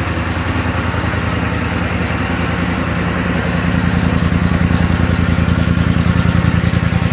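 Polaris Scrambler XP 1000's parallel-twin engine idling steadily, with an even pulsing exhaust note that grows a little louder about halfway through.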